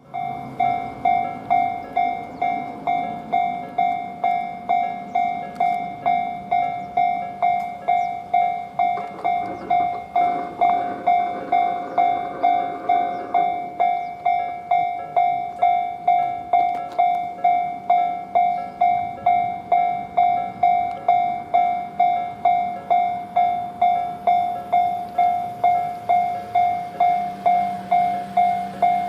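Japanese level-crossing warning bell ringing its steady "kan-kan" alarm, about one and a half clear metallic strikes a second, signalling that a train is approaching. About ten seconds in, a rumble of a train running past rises under the bell for a few seconds.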